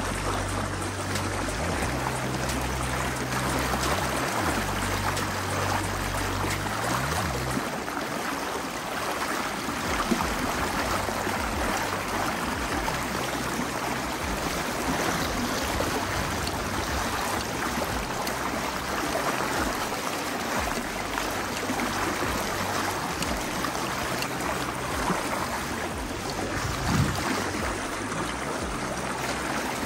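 Flowing river water, a steady rushing hiss of current. A low bass line of music plays under it for the first several seconds, then stops.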